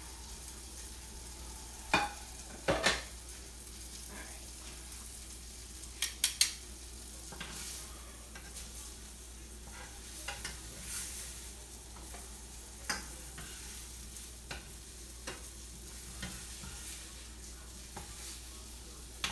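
Chicken frying in a skillet with a steady sizzle. Sharp clinks of dishes or utensils come about two seconds in, again just under three seconds in, and in a quick cluster about six seconds in.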